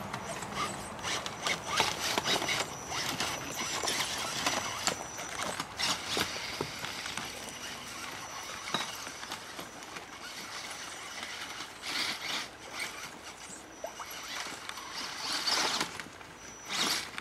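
A radio-controlled scale trail truck's electric motor and geared drivetrain whirring with a thin high whine as it crawls over the course, with scattered clicks and knocks of the truck against the terrain.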